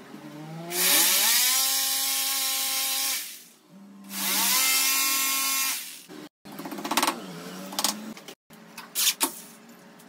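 Electric drill boring holes for the WPC panel clips, run twice for about two to three seconds each time. Each run rises in pitch as the drill spins up and falls as it winds down. A few short knocks and taps follow in the second half.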